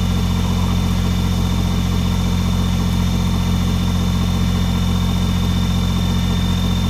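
Kubota BX23S compact tractor's three-cylinder diesel engine idling steadily, with a faint steady high whine above it.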